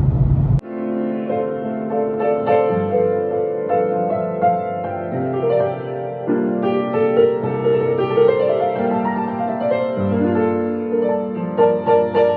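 Gentle piano music with sustained, overlapping notes. A low vehicle rumble cuts off suddenly about half a second in, just as the music starts.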